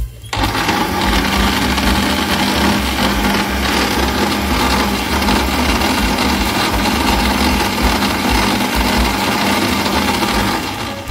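Kenwood countertop blender running at a steady speed, its motor and blades churning a jug of thick, pulpy liquid. It switches on about a third of a second in and winds down near the end.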